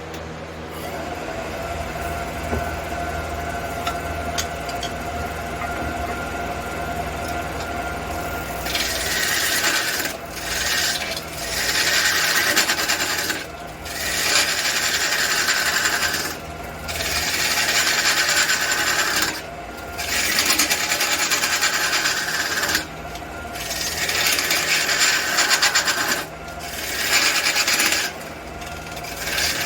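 Wood lathe running with a steady hum. From about nine seconds in, a hand-held tool is worked against the spinning red cedar in repeated passes of two to three seconds each, with short breaks between them.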